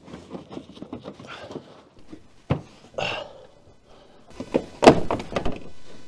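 Felt-covered plastic trunk trim panel and its clips being pried and handled: scattered small clicks and rustling, a sharp knock about two and a half seconds in, and a cluster of louder knocks and scraping near the end.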